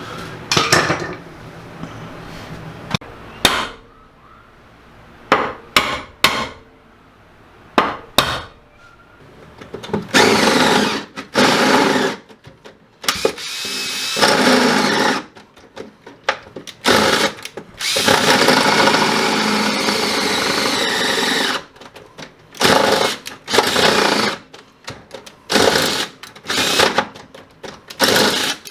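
A handheld power tool run in repeated on-off bursts of one to four seconds, fastening the rear AWD bracket into the car. Before it, during the first several seconds, come a few sharp knocks.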